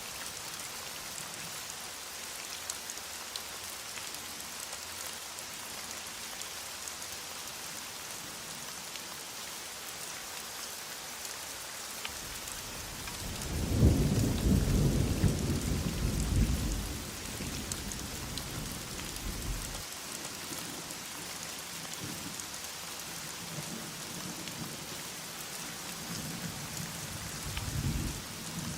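Steady heavy rain hissing, with a roll of thunder that swells about halfway through and fades over a few seconds, and a fainter rumble near the end.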